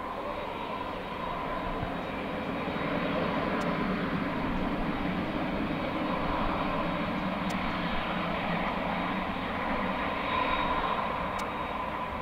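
Boeing 767-300 airliner's twin jet engines at idle thrust as it taxis past after landing: a steady rush with a faint whine. It grows louder as the plane passes and eases off near the end.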